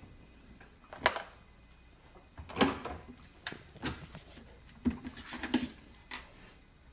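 A refrigerator door being opened and a husky puppy scrambling into the bottom of the fridge: a run of separate knocks, bumps and rattles, with the sharpest about a second in and near the middle.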